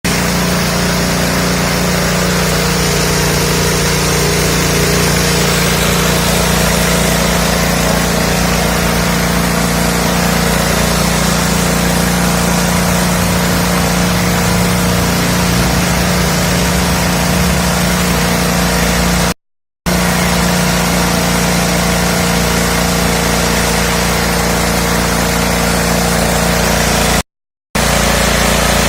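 Small 5.5 hp single-cylinder petrol engine running at a steady speed, driving a mini rice huller, with a dense hiss over the engine note. The sound drops out briefly twice, about two-thirds of the way through and again near the end.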